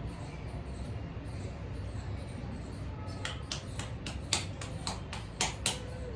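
Hands clapping: a quick run of about ten sharp claps, some four a second, starting about three seconds in over faint steady background noise.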